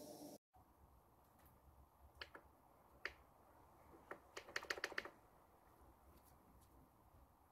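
Faint clicks of the buttons on a Parkside PKA 20-LI-A1 cordless inflator's control panel being pressed to set the target tyre pressure: a few single presses, then a quick run of about six presses, then two more.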